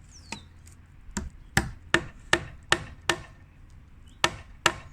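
Hammer blows driving a nail into roof timber: about nine sharp strikes, seven in a quick run and then two more near the end. Each strike is followed by a clear echo off the houses across the road, about a quarter of a second later.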